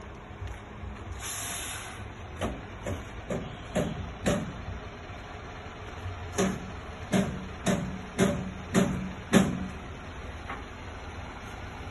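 Heavy low-loader truck moving slowly, with a short air hiss about a second in, then two runs of sharp knocks about every half second, five and then six, the last the loudest.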